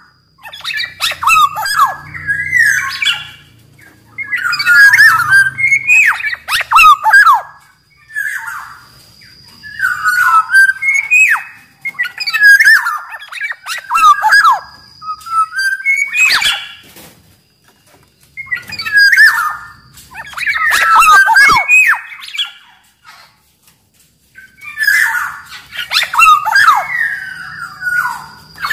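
Black-naped oriole (kepodang) singing: about eight short phrases of gliding whistled notes, one every few seconds with short pauses between.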